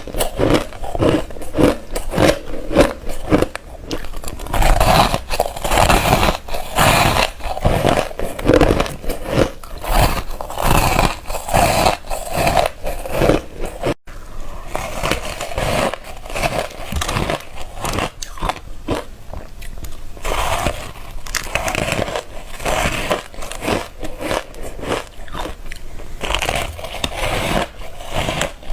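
Close-miked biting and crunching of ice, one bite after another in quick succession. A sudden break about halfway leads into crunching that sounds thinner, with less low end.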